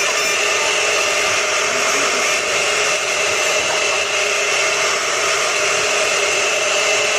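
A small electric power tool's motor running steadily, an even whir with a constant high whine.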